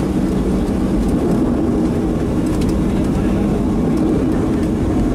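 Cabin sound of a Boeing 737-700 rolling on the ground with its CFM56 engines running: a steady rumble with a low engine hum, even in level, with faint scattered ticks.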